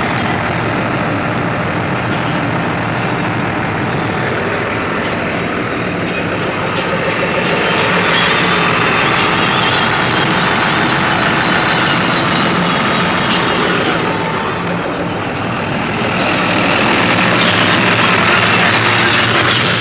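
An engine running steadily under a loud rushing noise that grows louder about eight seconds in, dips briefly around fourteen seconds, then rises again.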